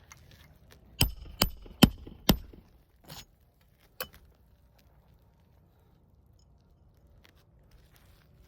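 Four sharp hammer blows, about two a second, each with a short metallic ring, then two lighter knocks, while a temporary asphalt shingle is being fastened on a roof.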